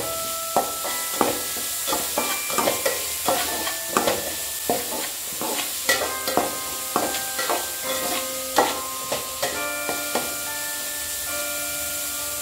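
Metal spatula scraping and knocking against a wide metal pot as chopped onions are stirred and sautéed in oil, about two strokes a second, stopping about three quarters of the way through. Soft background music with held keyboard-like notes plays underneath.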